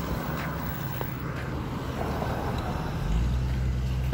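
Road traffic: a steady low engine hum over road noise, growing louder about three seconds in.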